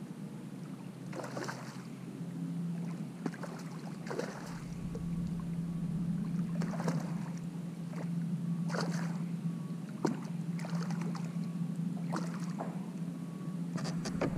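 Short splashes and slaps of water every second or two at a kayak's side as a hooked fish is played in at the surface, over a steady low hum.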